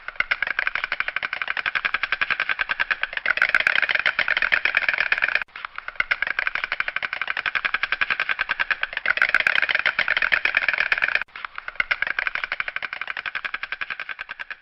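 White stork bill-clattering: a rapid, dry wooden rattle in three long bouts, each broken off by a brief pause, the last one fading out.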